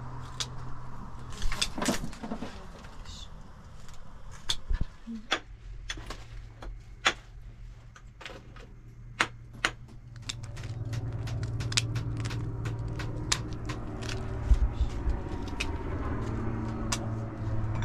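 Sharp, scattered clicks and taps of a knife working small hard white lumps and the pieces knocking into small cups. From about ten seconds in, a steady low mechanical hum joins underneath.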